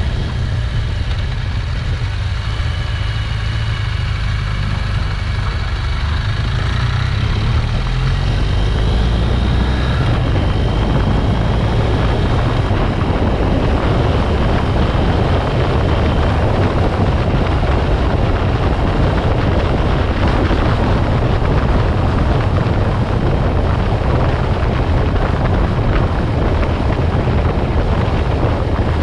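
Riding motorcycle at road speed: wind rushing and buffeting over the microphone, with the engine running underneath. The rush grows louder about eight seconds in as speed builds.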